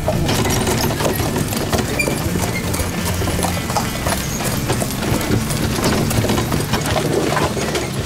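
A horse's hooves clip-clopping at a walk on a gravel lane as a horse-drawn carriage passes close by.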